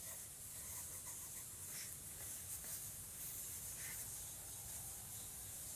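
Faint scratching of a pencil writing on paper, a few light strokes over a steady hiss.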